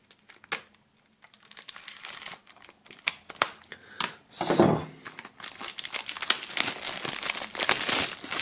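A knife cutting the shrink-wrap on a CD jewel case makes scattered clicks and scrapes. From about halfway in, the clear plastic film crackles and crinkles continuously as it is torn off and crumpled by hand.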